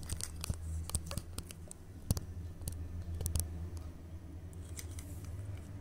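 Handling noise: scattered light clicks and taps over a low steady hum, the sharpest about two seconds in and again a little after three seconds.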